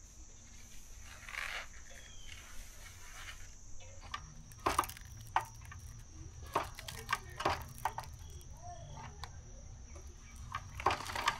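Scattered sharp clicks and knocks, several in the second half, over a steady faint high-pitched whine and a low hum.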